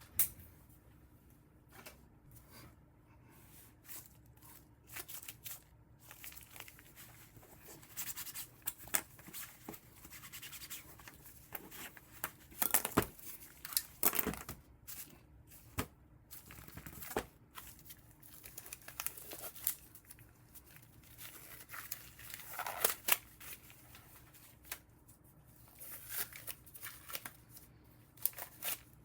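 Hands handling small objects: scattered clicks, scratchy scrapes and rustling at no steady rhythm, over a faint steady hum.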